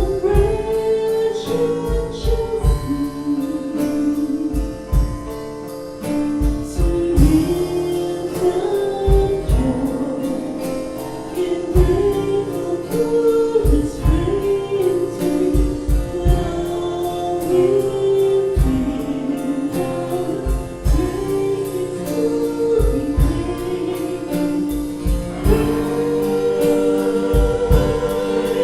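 A song: a sung melody over instrumental accompaniment with repeated low bass notes.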